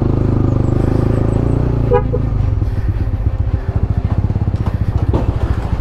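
Honda CB150X's single-cylinder engine running at low revs while the bike rolls slowly, its firing pulses becoming distinct beats after about two and a half seconds. A brief tone sounds about two seconds in.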